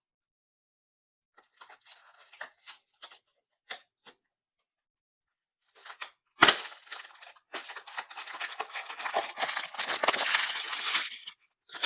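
Blind-box packaging being opened by hand: faint rustling at first, a sharp snap about six and a half seconds in, then several seconds of steady tearing and crinkling of the wrapping.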